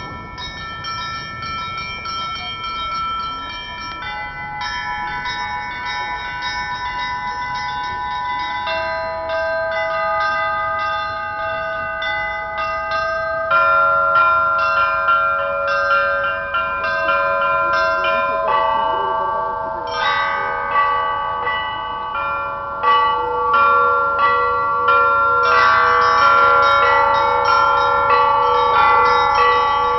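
Russian church bells ringing a peal: a set of bells struck in a rhythmic pattern by the ringer, with small high bells chiming rapidly. Lower, larger bells join about a third and halfway in, and the ringing grows steadily louder.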